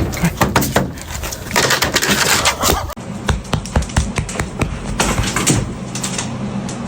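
A run of irregular knocks, taps and clatter with a rustling stretch in the middle. From about three seconds in, a steady low hum runs beneath the knocks.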